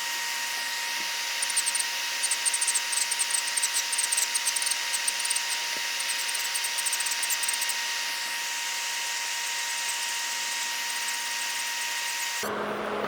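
Electric nail drill running with a steady high motor whine. From about 1.5 s to 7 s there is a fast scratchy chatter as the bit grinds against the nail. Near the end the sound switches abruptly to a lower hum.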